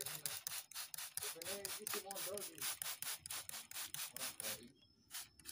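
Fast, even rubbing or scraping strokes, several a second, that stop near the end.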